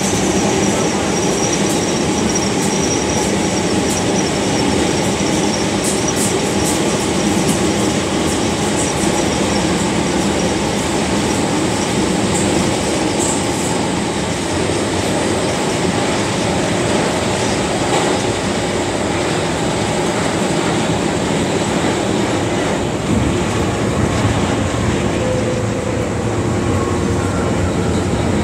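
MTR Tsuen Wan Line metro train running through a tunnel, heard from inside the passenger car as a steady, loud noise of wheels on rail. A thin high squeal fades out within the first few seconds.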